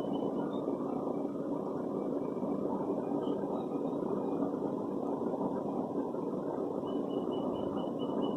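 Steady low mechanical hum at an even level, with a constant low tone running through it. About seven seconds in, a quick run of faint, evenly spaced high peeps begins.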